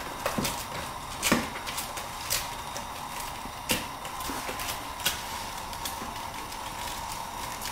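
Chinese cleaver slicing pieces of napa cabbage stalk held in the hand, a series of short sharp clicks spaced about a second apart.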